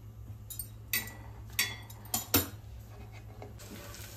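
Metal kitchen utensils and cookware clinking and knocking during roti making: about five sharp strikes, two of them ringing briefly. A low steady hum runs underneath.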